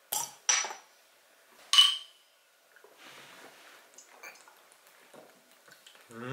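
Glass beer bottles knocking together in a toast: two quick knocks, then a sharp clink that rings briefly, followed by faint sounds of drinking.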